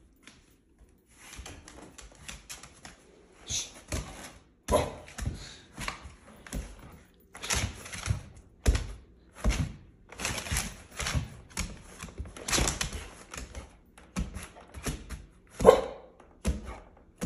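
Bull terrier's claws clattering and paws thumping on a hardwood floor as it jumps and lunges about, with an occasional bark.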